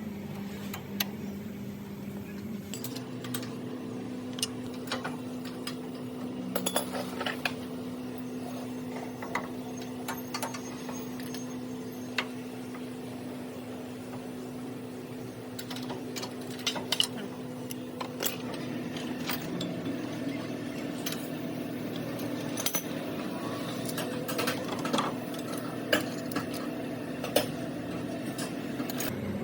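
Scattered metallic clinks and taps of hand tools working on brake parts, over a steady low hum.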